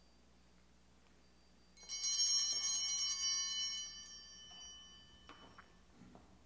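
Altar bells shaken in a quick jingling peal for about two seconds, then ringing away over the next second or two. They signal the priest's communion. A faint light knock follows.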